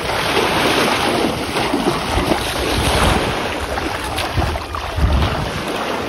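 Shallow seawater splashing and sloshing as someone wades in, with small waves washing on the shore and wind buffeting the microphone.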